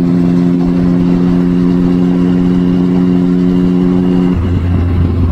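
Triumph Street Triple 675's inline three-cylinder engine through an aftermarket Two Brothers Racing exhaust, cruising at highway speed with a steady, even note. A little over four seconds in, the note breaks off and a lower hum takes over.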